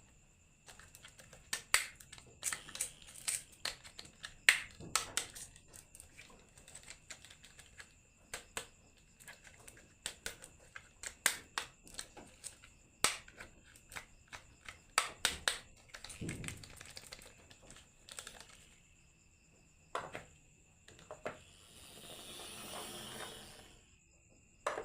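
Glass marbles clicking and clattering down a wooden marble run in irregular sharp knocks, with a brief rattling rush near the end.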